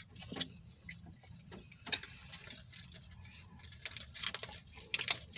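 Aluminium foil wrapper being unfolded by hand from a taco: soft, irregular crinkles and clicks.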